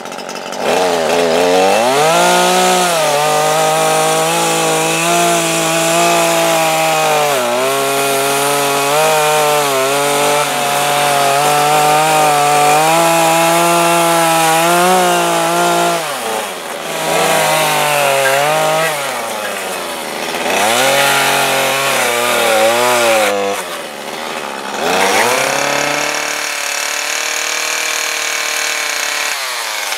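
Small Stihl MS 150 two-stroke chainsaw plunge-cutting a slot through a thick wooden slab. It revs up about a second in and holds at high revs with small dips as the chain bites, then in the second half the throttle is let off several times, the engine falling nearly to idle and revving up again.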